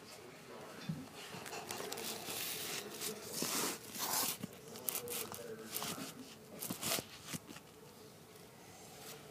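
Rustling, scraping and scattered light knocks of a camcorder being handled and moved close to the microphone, over a faint steady hum.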